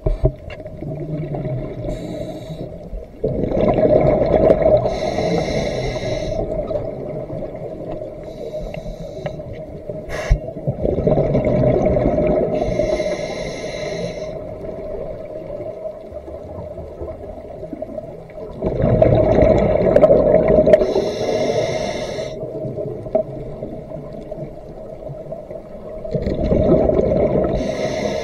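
A diver's scuba regulator breathing underwater: slow breath cycles, four in all, each surging up about every eight seconds as air is drawn through the regulator and exhaled in a rush of bubbles. A steady hum lies underneath.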